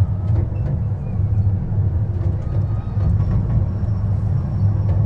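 Miniature park train running along its track: a steady low rumble with faint scattered clicks.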